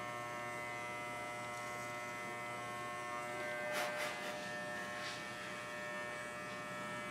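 Electric pet hair clipper (WAHL Basic Pet Clipper) buzzing steadily as it is run without a guard through a miniature schnauzer's belly fur, with a few short scratchy noises around the middle.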